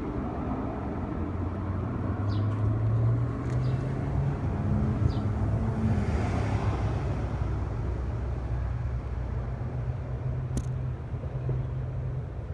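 Steady low engine rumble with a hum. A broad rush of noise swells about halfway through, and there are a few faint ticks.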